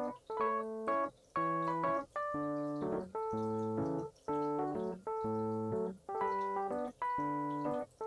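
Background music on an electric piano: bouncy chords in a steady rhythm, about one a second, with brief gaps between them.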